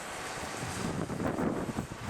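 Wind buffeting the microphone: a steady rushing noise with gusty low rumble.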